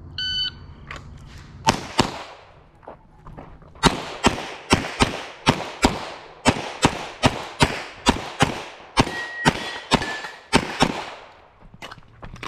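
Shot timer's start beep, then a pistol firing: two quick shots, a short pause, and then a long rapid string of shots at about three a second, the shooter running a USPSA course of fire.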